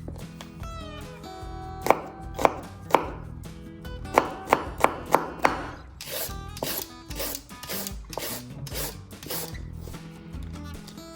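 Knife chopping vegetables on a cutting board: three sharp knocks, then a quicker run of five, then softer, hissier slicing strokes about three a second. Background music plays underneath.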